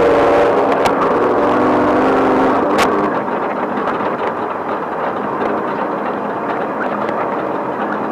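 Off-road race vehicle heard from onboard while driving a rough dirt track: the engine holds a steady note for about three seconds, then drops back under rough road and rattle noise. A sharp knock comes about three seconds in, as from a bump.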